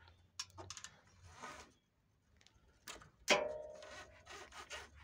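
Scania P360 truck's thin metal engine-oil dipstick being handled and slid back into its tube: a few light clicks and scrapes, then a sharper metallic clack a little past three seconds that rings briefly.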